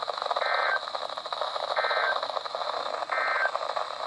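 Weather radio sending the EAS end-of-message code: three short, identical two-tone digital chirps about a second and a half apart, over steady radio static hiss. They mark the end of the flood warning broadcast.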